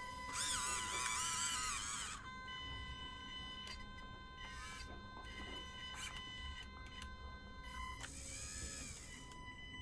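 Small electric motors of a radio-controlled excavator whining as it works, with a steady high whine and the pitch rising and falling as the motors speed up and slow down, about the first two seconds and again near the end.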